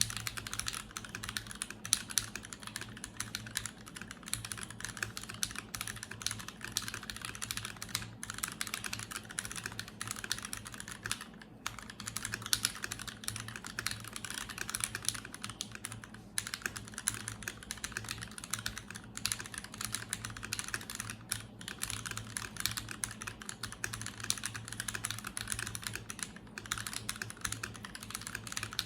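Continuous fast typing on a Cat980mini mechanical keyboard in an acrylic case with lubed and filmed Marshmallow switches: a dense run of keystrokes, broken by short pauses about 11 and 16 seconds in.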